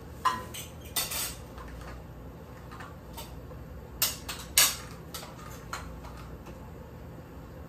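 Cutlery clinking against plates and dishes during a meal: a handful of short, sharp clinks, the loudest near the start and a close pair about four seconds in, with a few fainter taps between.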